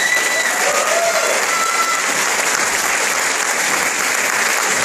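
Audience applauding steadily in a hall, with a high-pitched whistle or call from the crowd for the first couple of seconds.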